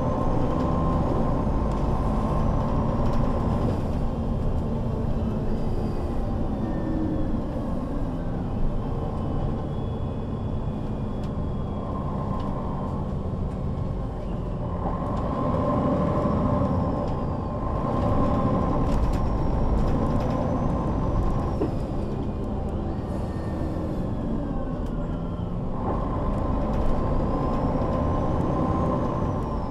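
MAN NL 263 low-floor city bus under way, heard from inside the passenger cabin: its six-cylinder diesel engine and drivetrain running with road noise, swelling and easing several times as the bus pulls and coasts. Faint high whines glide up and back down now and then.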